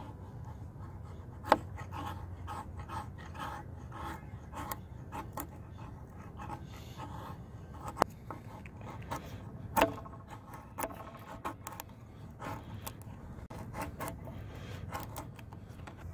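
Knife blade shaving thin curls off a stick of fatwood (resin-rich pine): irregular short scraping strokes, with a few sharp clicks in between.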